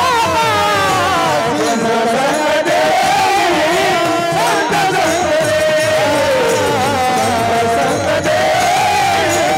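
Warkari kirtan singing: a solo voice holding long, ornamented notes that bend and waver, over a steady beat of drum strokes and small hand cymbals.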